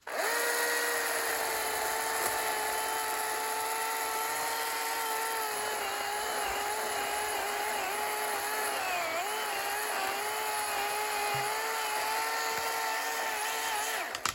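Ryobi 18V One+ battery chainsaw running at full speed and cutting wood: a steady high electric motor-and-chain whine that starts suddenly, sags in pitch now and then under load, and stops shortly before the end.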